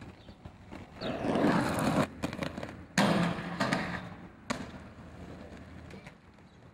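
Inline skates rolling fast on pavement, then a sharp hit as the skater strikes a metal barrier rail about three seconds in, a second of scraping along the bar, and a clack of the landing about a second and a half after the hit.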